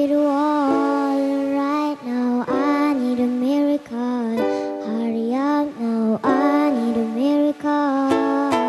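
A young girl singing into a microphone, holding long notes with slides between them, while accompanying herself on ukulele.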